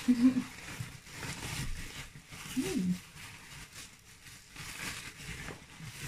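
Packing paper and wrapping rustling and crinkling as hands dig through a cardboard parcel, with a brief hummed voice sound at the start and another a little before halfway.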